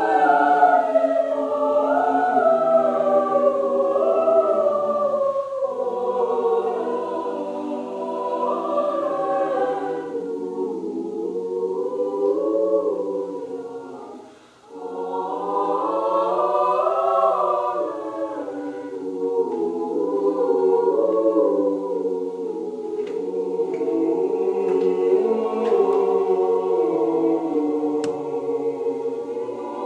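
Mixed choir singing a sustained, slow-moving sacred piece in several voice parts, with a brief breath pause about halfway through before the voices come back in together.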